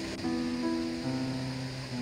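Instrumental background music: held notes that change every half second to a second.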